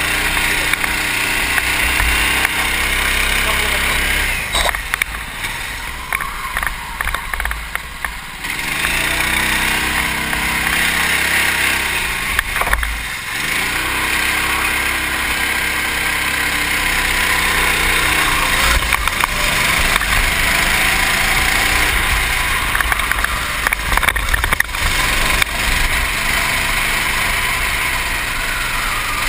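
Racing kart engine at full race pace, heard from the driver's helmet: the revs rise along the straights and fall away when he lifts for corners, about four and twelve seconds in, before climbing again.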